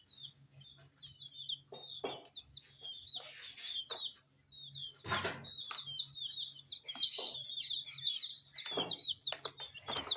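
A group of young chicks peeping continuously, with many short, high chirps overlapping in quick succession. Scattered knocks and rustles break in, the loudest about five seconds in and near the end, over a faint steady low hum.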